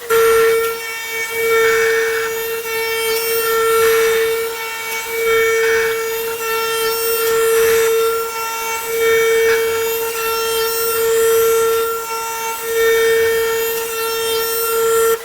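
CNC glass processing centre's spindle whining at a steady high pitch while its tool grinds glass, with a grinding rush that swells and fades about every two seconds.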